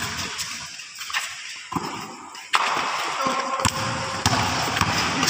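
Basketball game noise on a concrete court: the ball bouncing and thudding among players' footsteps, over a steady haze of court noise that jumps suddenly louder about halfway through.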